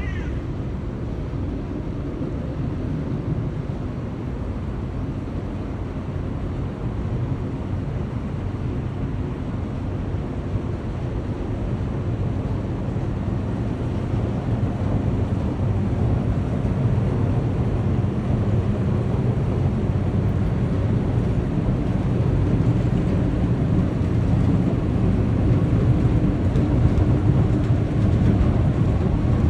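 Low steady rumble of a large cargo ship's engine, slowly growing louder as it draws nearer.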